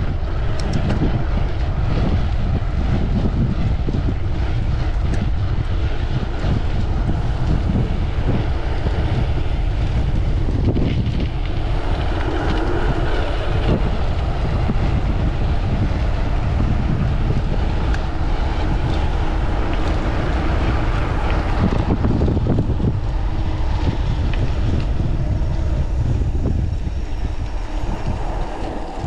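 Wind buffeting the microphone of a mountain bike on a fast downhill, mixed with the rumble of the bike rolling over the trail. It is loud and steady, and eases off near the end.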